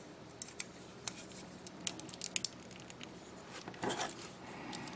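Plastic parts of a 1/144 HG Zowart Heavy model kit being handled and pressed together: scattered small clicks and taps, a quick cluster of clicks about two seconds in, and a brief rustling scrape near four seconds.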